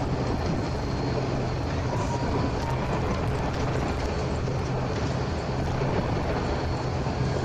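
ATR 72-600's Pratt & Whitney PW127M turboprop engine and propeller heard from inside the cabin beside the engine, a steady drone with a low hum, as the aircraft rolls along the runway.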